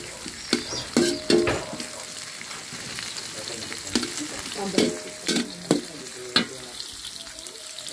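Metal spatula scraping and knocking against an aluminium wok as chopped vegetables sizzle in hot oil. The strokes come irregularly, and many leave the wok ringing briefly.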